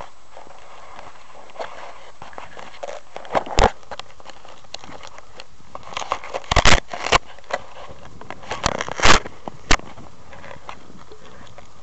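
Handling noise on a small onboard camera's microphone: irregular knocks, clicks and rubbing as fingers grip and move the camera, over a steady hiss. The loudest knocks come in clusters about a third of the way in, past halfway, and near the end.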